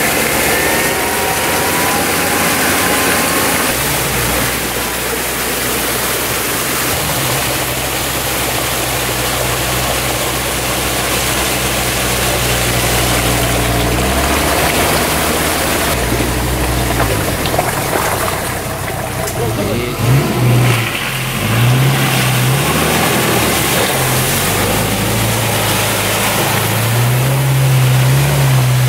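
Off-road 4x4's engine working under load, the revs swinging up and down several times about two-thirds of the way in and pulling hard near the end, over a constant rushing noise.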